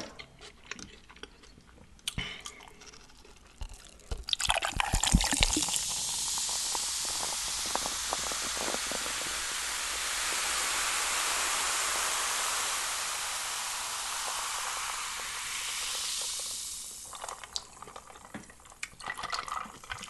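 Carbonated Faygo soda poured out and fizzing: a few clicks and crackles, then a steady hiss lasting about twelve seconds that tapers off.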